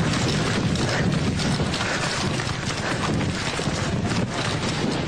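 Wind buffeting the microphone of a camera carried at a run, with a dense rumble and irregular handling knocks and rustles.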